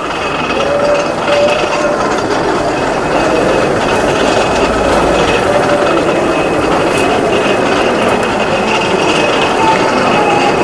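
Steady background din of a busy exhibition hall: a continuous mix of distant voices and running machinery, with a faint steady high whine.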